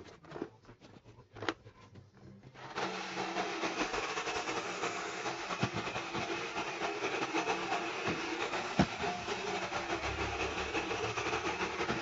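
A first-generation iRobot Roomba robot vacuum switched on: a click or two, then about three seconds in its vacuum, brush and drive motors start and run steadily across carpet, with a few sharp knocks along the way.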